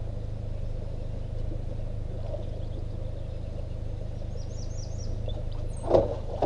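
A hooked catfish splashes at the surface about six seconds in as it is hand-lined to the boat, over a steady low outdoor rumble. A bird chirps a few times just before the splash.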